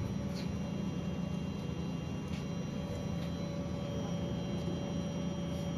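Motorised honeycomb bed (Z-table) of a Thunder Laser Nova 35 laser cutter being driven up or down by its motors: a steady hum with a faint steady whine, tested to confirm the bed works.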